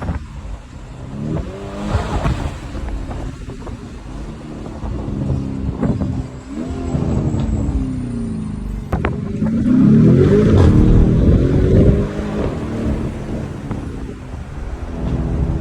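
Lamborghini Urus's twin-turbo V8 engine revving and accelerating, its pitch rising and falling several times, loudest about ten seconds in.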